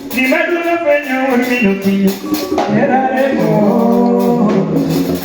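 Live band playing a song with a male voice singing over it and sharp hand-percussion strokes, through a PA during a sound check.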